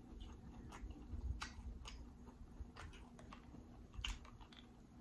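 Close-miked chewing of buttery seafood boil: soft, wet mouth clicks and smacks, scattered a few times a second, with a slightly louder one about four seconds in.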